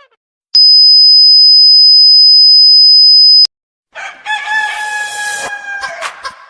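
A loud, steady, high-pitched electronic beep held on one pure tone for about three seconds and cut off abruptly. After a short silence comes a drawn-out, hoarse call of about two seconds whose pitch falls slightly.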